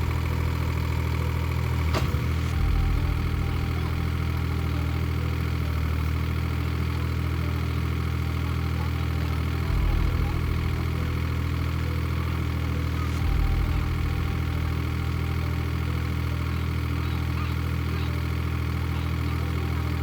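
Excavator's engine running steadily, with a few brief swells in its low note about two, ten and thirteen seconds in, and one sharp click about two seconds in.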